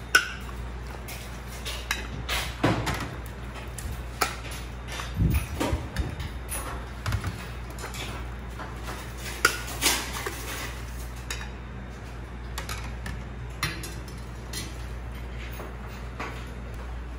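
A metal ladle and ceramic soup bowls clinking and knocking as soup is ladled into the bowls and they are set down on a plastic tray, the clinks coming thickly at first and thinning out after about ten seconds, over a steady low hum.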